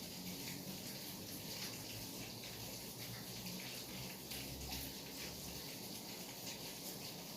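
Steady rain falling, an even hiss flecked with many small drop ticks.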